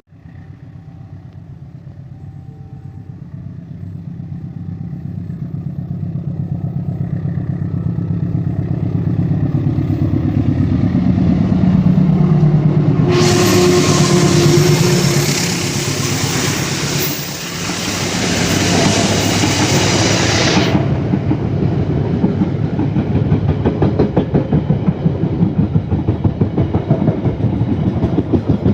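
Diesel locomotive approaching and passing close by, its engine growing louder and dropping in pitch as it goes past about halfway through. The wagons behind it follow with a steady rhythmic clickety-clack over the rail joints.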